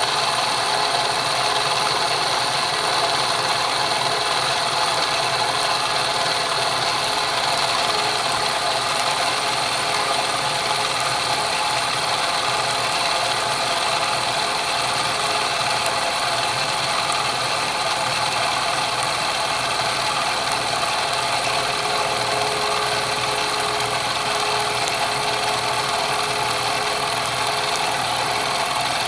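Fly cutter in a PM25MV milling machine's spindle, turning at about 1200 RPM and taking a steady cut across a metal workpiece. A continuous, even cutting and scraping noise over the hum of the running spindle.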